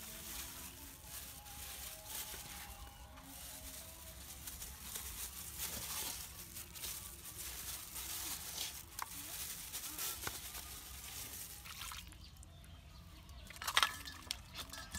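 Wet squelching and crinkling of a plastic-bag-gloved hand working seasoning into a whole raw chicken in a steel pot. Near the end, a sharp click as a knife cuts into a cabbage in a metal bowl.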